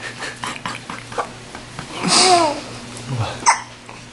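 A baby hiccuping: small clicks in the first second, a short squeaky sound with a rising-and-falling pitch about two seconds in, and a sharp hiccup a second later.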